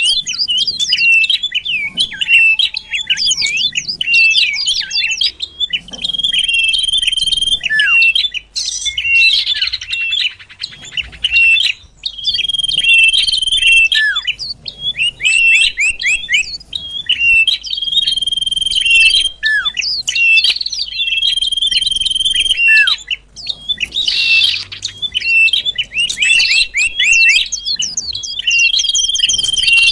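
Common iora (cipoh) song played as a trapping lure: busy chirping broken by long drawn whistles that end in a short downward note, the phrase coming round again every five or six seconds.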